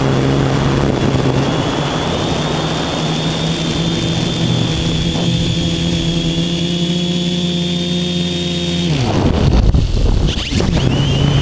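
RC multirotor's electric motors and propellers humming steadily, heard from the onboard camera. About nine seconds in the motor pitch drops sharply as the motors cut out, the model having gone into radio failsafe from interference. A loud, rough rushing noise follows as it tumbles down.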